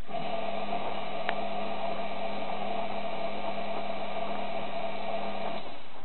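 Washing machine drum motor running, tumbling the drum during the heating stage of a 40°C cotton wash: a steady whine over a hiss that starts at once and cuts off about five and a half seconds in. A short tick sounds about a second in.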